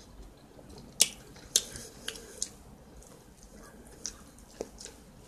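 A person chewing food close to the microphone, with a few sharp crunchy clicks, the loudest about a second in and another about half a second later.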